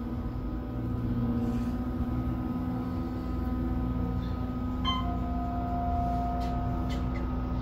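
Otis hydraulic elevator car in travel between floors, with a steady low hum and steady tones. About five seconds in, as the car passes a floor, a short chime rings and a held tone follows. Two faint clicks come near the end.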